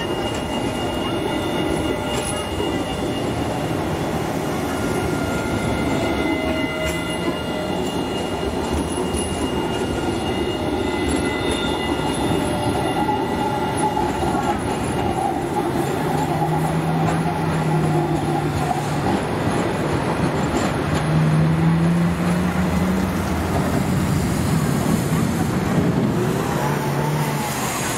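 Alstom Citadis tram running slowly through a track curve, its wheel noise carrying several high steady tones of wheel squeal and motor whine. About halfway through these fade and a low engine hum from road traffic takes over.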